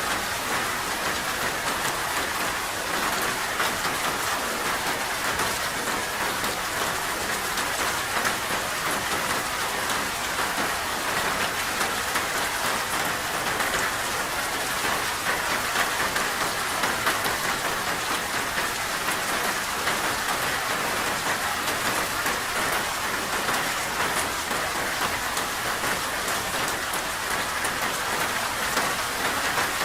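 Steady rain falling, an even hiss without pauses or changes.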